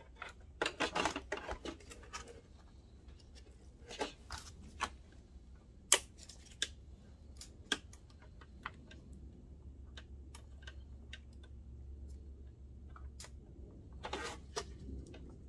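Irregular small clicks and taps from handling a projector's plastic top cover and fitting a flat ribbon cable into its board connector: a quick run of clicks at the start, one sharp click about six seconds in, scattered taps, and another brief cluster near the end, over a faint low hum.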